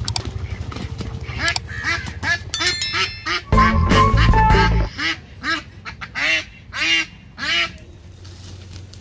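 Domestic ducks quacking over and over, about two quacks a second, as one of the flock is grabbed by hand; the quacking stops a little before the end. Background music plays underneath and drops out about five seconds in.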